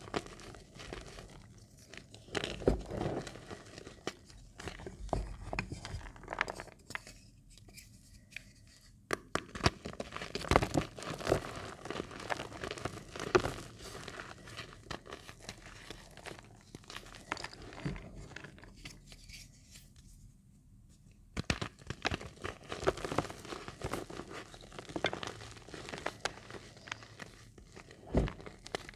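Bare hands squeezing and crushing crumbled reformed magnesia gym chalk in the palms: crisp, gritty crunching and crumbling as lumps break and powder falls through the fingers. It comes in irregular handfuls and pauses briefly about seven and about twenty seconds in.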